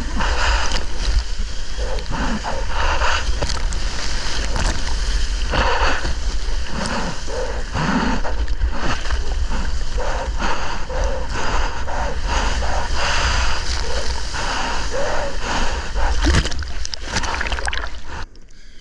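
Seawater splashing and sloshing around an action camera in the surf, in many short irregular splashes over a constant low rumble of wind on the microphone. The sound drops off suddenly near the end.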